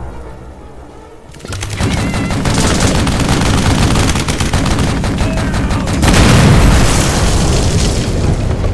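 A dense barrage of rapid booming impacts over a heavy rumble, starting about a second and a half in and growing louder about six seconds in: animated-film battle sound effects.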